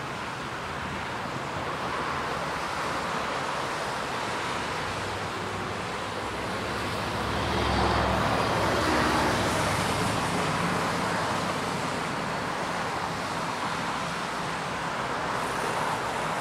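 Steady hum of city road traffic, with one vehicle passing about eight seconds in, its low engine rumble swelling and then fading.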